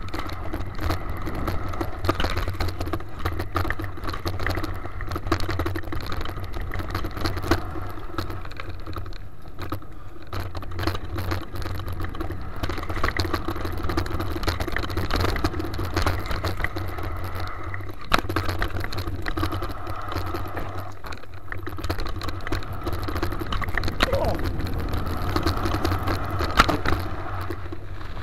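Mountain bike rolling fast over a dirt trail: steady tyre rumble and wind noise, with the bike and camera mount rattling and clicking over the bumps and a couple of sharper knocks.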